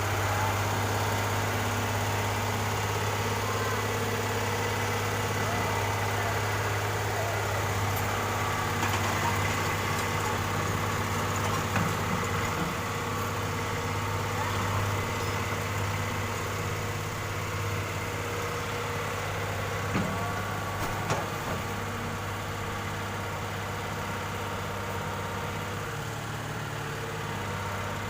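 Excavator's diesel engine running steadily, with a few short knocks partway through.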